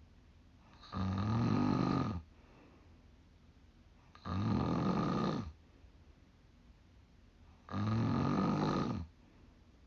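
A woman snoring in her sleep: three loud snores, each about a second long, coming roughly every three and a half seconds with quiet gaps between.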